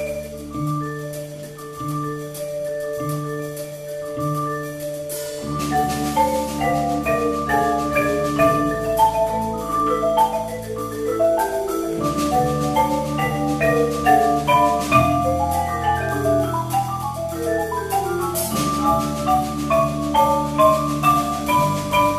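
Percussion ensemble playing a piece on marimbas and other mallet keyboard instruments, over an electric bass line. A sparse repeating figure opens, and about five seconds in more parts join in busy runs of notes.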